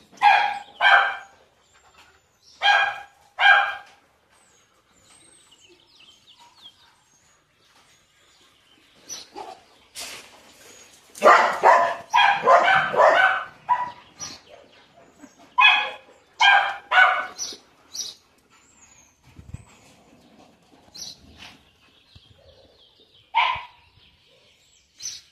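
Dogs barking in short bursts: a pair of barks right at the start, another pair about three seconds in, a rapid run of barks in the middle, three more a couple of seconds later, and a single bark near the end.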